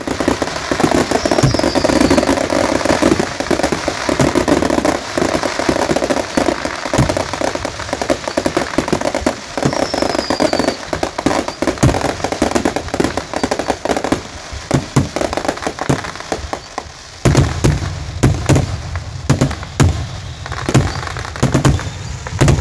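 Aerial fireworks display: a dense run of crackling, popping bursts, then, from about three-quarters of the way through, deeper booms of shells bursting, mixed with sharp cracks.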